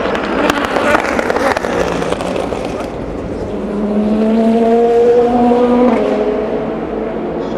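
Race car engines at a corner: a run of sharp pops and crackles in the first two seconds, then an engine accelerating with its pitch climbing and an upshift about six seconds in.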